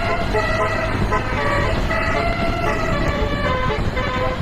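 Bus basuri telolet horn playing a quick melody of held notes that change every few tenths of a second, over a steady low rumble of road and engine noise.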